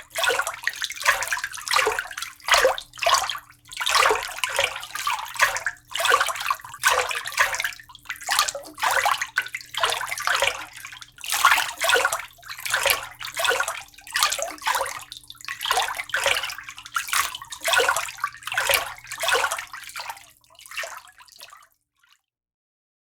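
Water sloshing and splashing in repeated surges, roughly one every half second to a second, over a faint steady hum; it stops shortly before the end.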